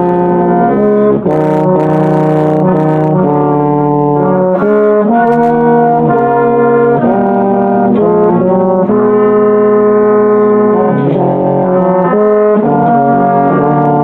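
Euphonium playing a flowing melodic line, with other sustained parts sounding underneath; the notes change every half second to a second, without a break.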